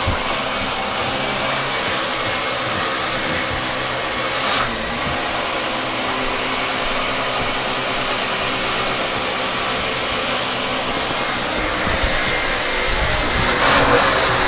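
Dyson Animal upright vacuum cleaner running steadily, with a brief knock about four and a half seconds in. It gets louder near the end.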